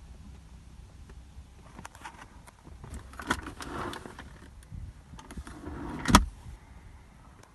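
Clicks and rattles of a Jaguar XJ8's centre-console fittings being handled, with the cupholder and armrest lid worked by hand. The loudest is a single sharp click-thump a little after six seconds in, as the armrest lid's latch is pressed.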